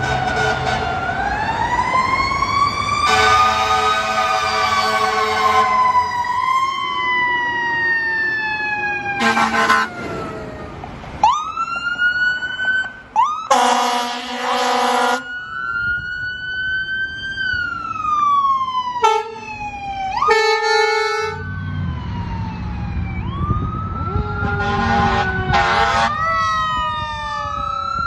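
Fire truck and ambulance sirens wailing and yelping, rising and falling in pitch, broken by about six air horn blasts of a second or two each.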